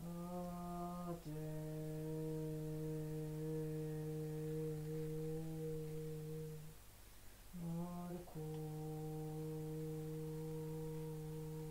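A woman's voice intoning a ritual chant on one vowel, humming-like and held: a short note steps down into a long sustained tone of about five seconds, then after a brief pause the same two-note phrase comes again.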